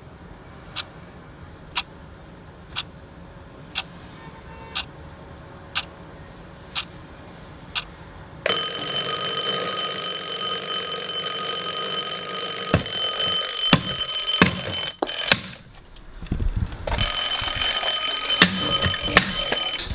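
A clock ticking once a second, then an alarm clock suddenly going off with a loud, steady, high-pitched electronic ring, broken by a few knocks and a short drop-out before ringing on.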